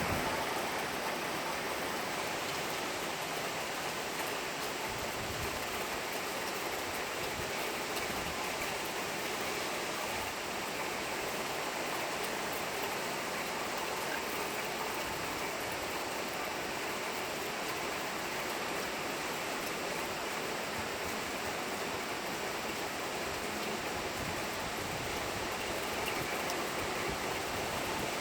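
Steady hiss of heavy rain falling during a hurricane.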